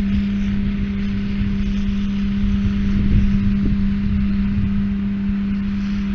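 Tractor engine running steadily at constant speed, a continuous even-pitched drone over a low rumble.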